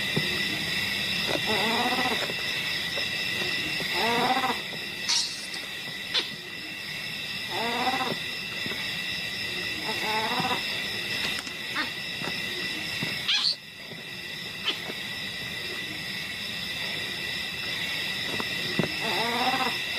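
Steady trilling chorus of night insects, with five short rising animal calls every few seconds and a few sharp clicks.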